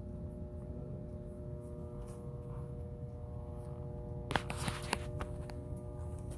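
Room tone of a shop: a steady low rumble with a faint, unchanging hum of several tones, and a short cluster of clicks and knocks about four and a half seconds in.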